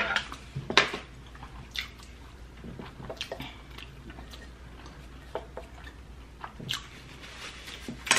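Close-miked, wet chewing of sushi, with irregular lip smacks and mouth clicks.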